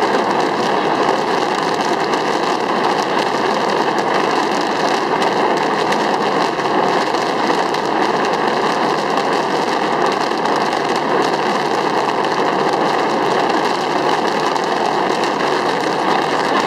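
Fireworks going off nonstop, heard as an even, steady rushing noise with no single bang standing out.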